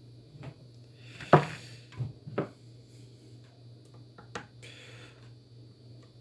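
A screwdriver clicking and knocking against the chainsaw's carburetor parts as a Phillips screw is worked loose: a few sharp clicks, the loudest about a second and a half in, with a faint rub later on.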